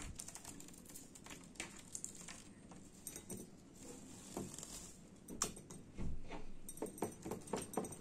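Soft scattered taps, clicks and light splashes from budgerigars at a small glass water bowl, as a green budgie perches on the rim and dips into the water to bathe. A quick run of taps comes near the end.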